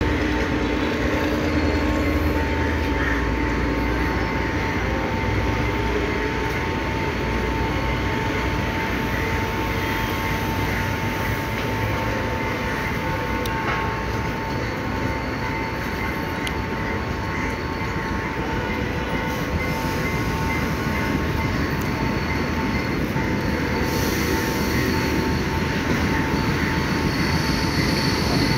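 Sri Lanka Railway M8 diesel-electric locomotive approaching with its train: a steady low engine drone mixed with wheel-on-rail noise, growing a little louder near the end.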